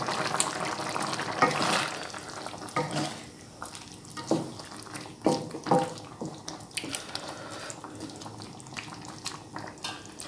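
Curry simmering and bubbling in a nonstick wok for about the first two seconds, then a wooden spatula stirring the thick curry, with scattered light knocks and scrapes against the pan.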